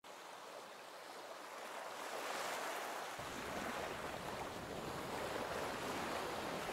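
Waves washing, a steady rushing noise that fades in over the first couple of seconds and then holds, with a deeper rumble joining about three seconds in.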